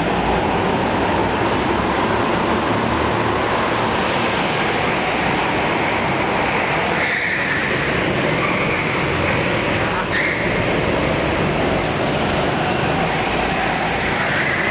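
Engines of several go-karts racing around an indoor track: a dense, steady running noise inside the hall.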